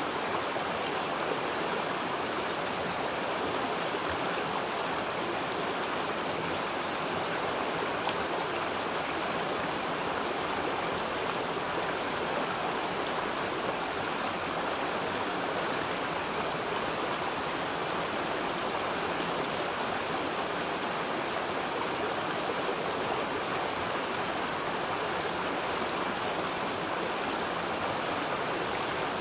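Running water: a steady, even rush with no breaks or changes.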